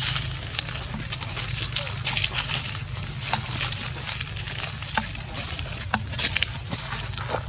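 Dry leaf litter crackling and rustling underfoot in many small irregular snaps, over a steady low hum.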